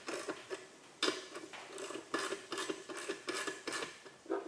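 Hand ratchet with a 5/16 socket clicking in quick, irregular runs as bolts are run into a garage door opener's metal mounting bracket, left loose for now.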